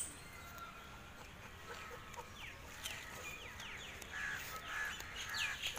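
Birds calling: a run of short, high calls that fall in pitch, starting about two seconds in and coming more often toward the end, over a faint outdoor hiss.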